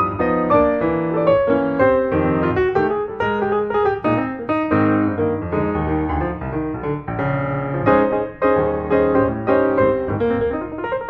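Background music: a piano piece with many quick notes and chords at a steady level.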